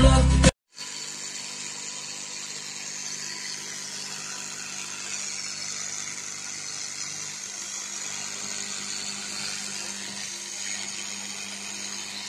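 Music cuts off about half a second in. Then a handheld fibre laser welder runs steadily as it welds a steel tube: an even machine hum with a hiss over it.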